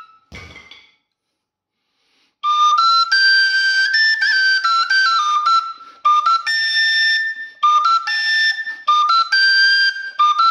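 Thai khlui duct flute playing a melody in the high register, in short phrases of held and stepping notes. It starts about two and a half seconds in, after a brief thump near the beginning.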